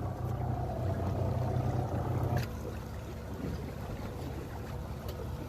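A fishing panga's outboard motor running steadily, with water and wind noise. The low hum eases a little about two and a half seconds in.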